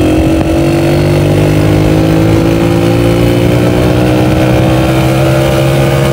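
A 125 cc motorcycle engine running steadily while riding, its pitch creeping slowly upward as the bike gathers speed.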